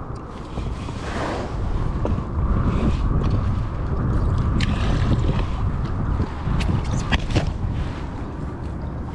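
Wind noise on the microphone and water against a kayak's hull while a spinning reel is cranked to bring in a hooked white bass, with a few sharp clicks about halfway through and again later.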